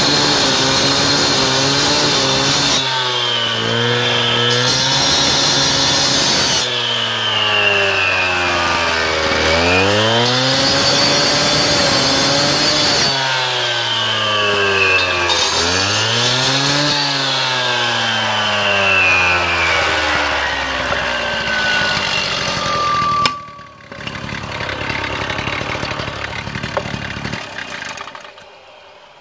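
Two-stroke petrol cut-off saw with a 300 mm blade and water feed cutting a curve in a hard limestone paving slab. The engine's revs drop and recover again and again as the blade bites into the stone. Near the end the revs fall away and the engine sound stops abruptly, leaving a few seconds of softer hiss.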